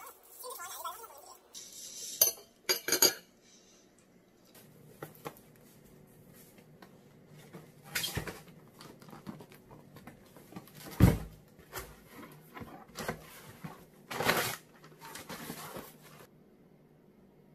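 Metal chopsticks clicking against a ceramic dish a couple of times, then a delivery box being unpacked: a styrofoam cooler and a cardboard box handled and opened, with knocks, paper packing rustling, and one heavy thump midway, the loudest sound.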